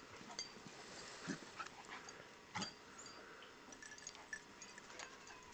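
Faint sounds from a young dog, with a few brief soft knocks.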